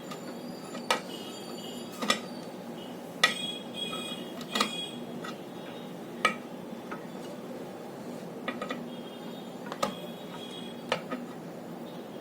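Small metal tools and parts clinking and tapping at irregular intervals, with a short metallic ring after the sharper knocks, as a new charging socket is fitted and tightened on an electronic crane scale.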